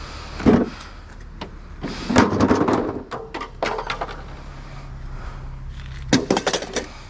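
Scrap steel being handled and loaded: a clank about half a second in, a rattling clatter around two to three seconds in, and a quick run of sharp metallic strikes near the end, over a steady low hum.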